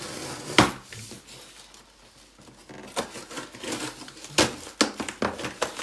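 Packaging being handled in an opened flat-pack box: cardboard, plastic film and polystyrene crinkling and crackling. One loud crack comes about half a second in, and a quick run of sharp crackles follows in the second half.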